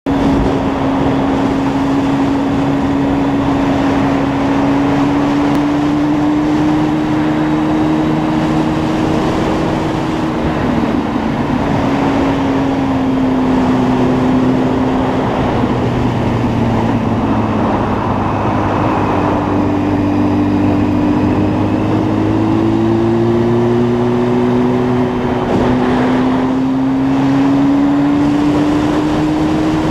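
Motorcycle engine running at road speed, its note rising and falling slowly as the throttle changes through the bends, over a steady rush of wind on the microphone.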